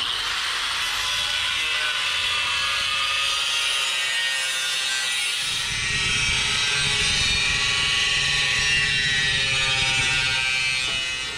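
Electric angle grinder with a thin cut-off disc cutting through the sheet-metal casing of an old Magnaflow muffler: a loud, steady grinding whine. About halfway through, a lower rumble joins in.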